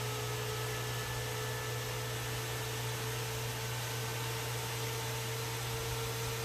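Computer running with its CPU cooler fan spinning: a steady whir of air noise with a faint hum and a few thin motor tones that drift slightly in pitch.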